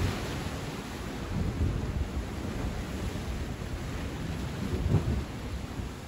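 Sea waves washing on the shore, with wind gusting over the microphone in deep rumbling buffets, strongest right at the start and again about five seconds in.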